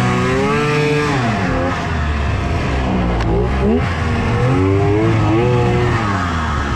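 Polaris Indy XLT 600 snowmobile's three-cylinder two-stroke engine running under throttle, its pitch rising and falling several times as the throttle is worked, over a steady low rumble. One sharp click about three seconds in.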